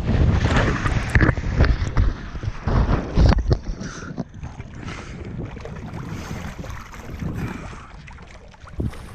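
Wind buffeting the microphone and water splashing hard as a windsurf board and sail crash into the water during a tack. About three and a half seconds in it drops to quieter water sloshing and gurgling around the fallen rig.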